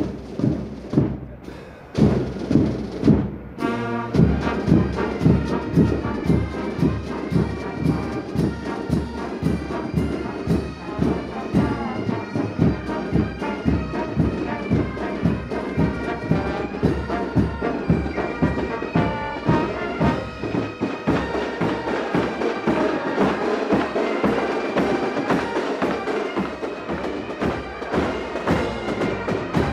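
Military marching band playing a march: drums beat out the time alone at first, and about four seconds in the brass (trumpets, saxophones and sousaphone) comes in over a steady marching beat.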